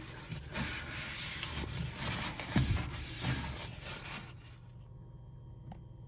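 A cloth rubbing and scuffing over the inside walls of a microwave, wiping out grime loosened by steam, with a couple of soft knocks midway; the wiping stops after about four and a half seconds.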